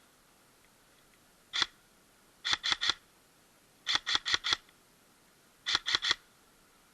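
Airsoft gun firing: a single shot, then three quick bursts of three or four sharp shots each.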